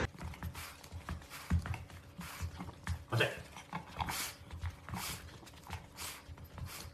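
Quiet room with a few faint, short sounds from a Shiba Inu, coming about once a second, as it holds back from its food bowl waiting for the release command.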